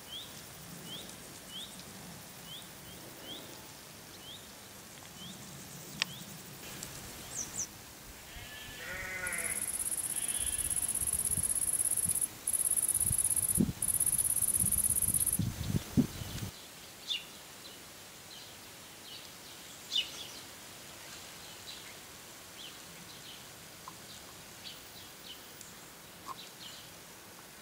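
Countryside sounds: a bird repeating a short falling chirp every half second or so, then a wavering bleat-like animal call. A loud, high, steady insect buzz follows for about six seconds, breaks twice and cuts off suddenly.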